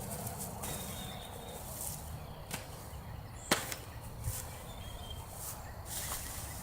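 Brush and debris being cleared by hand: scattered rustles and a sharp crack about three and a half seconds in, like a stick snapping, over a steady rumble of wind on the microphone.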